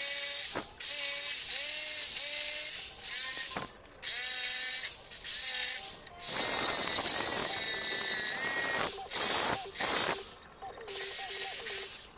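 Corded jigsaw cutting a notch into a clamped wooden board, in about six short runs that start and stop with brief pauses between them.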